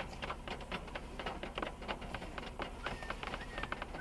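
Raindrops tapping irregularly on the car's roof and windshield, several light ticks a second, heard from inside the car over a faint low hum.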